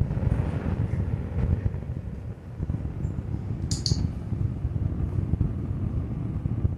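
Steady low rumble, with a quick double click about four seconds in from a dog-training clicker marking the Boston terrier puppy's nose touch on the bell.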